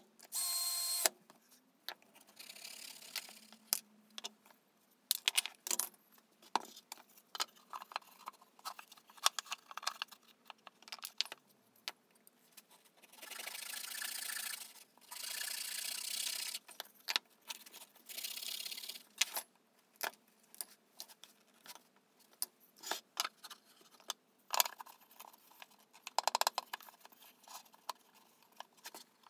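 A cordless drill briefly whines as it drives a screw into wood, stopping about a second in, followed by the clatter and knocks of wood pieces and tools handled on a workbench. About halfway through, a hand saw cuts through a small piece of wood in three long rasping strokes.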